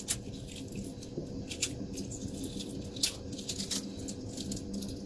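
A hard-boiled egg's cracked shell being peeled off by hand: scattered small crackles and clicks as the shell snaps away in pieces, the sharpest about three seconds in. The shell comes away easily, the egg having been cooled in cold water after boiling.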